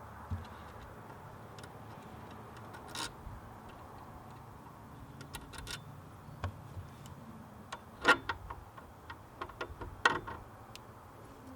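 Scattered small metallic clicks and clinks of battery cable lugs and hardware being handled and fitted to terminals, with two louder clanks about eight and ten seconds in.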